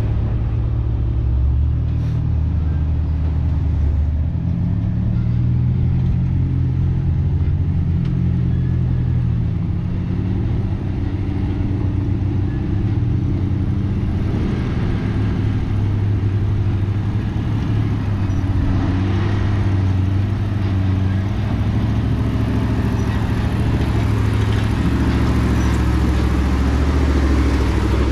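Off-road 4x4's engine running at low revs under load, its note rising and falling as it crawls down a rock chute.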